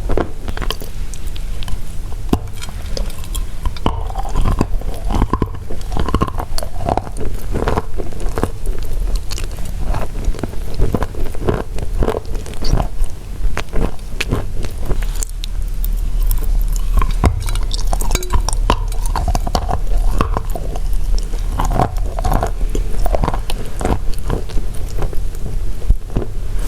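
Close-miked biting and chewing of pressed chalk tiles: many dry, irregular crunches and crackles, over a steady low hum.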